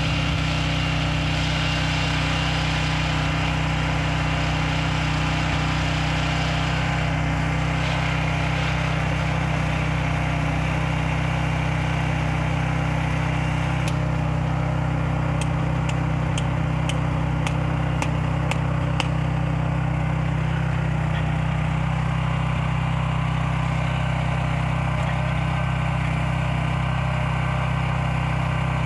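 Small engine of a helical-pile installation rig running steadily, powering the hydraulic drive head. A run of sharp clicks sounds about halfway through.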